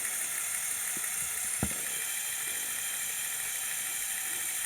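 Lego Technic drivetrain running in third gear: two Power Functions XL motors and the sliding-gear gearbox whirring steadily, with a single sharp click about one and a half seconds in.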